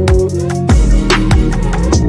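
Background music with a steady drum beat and deep bass notes that slide down in pitch after the hits.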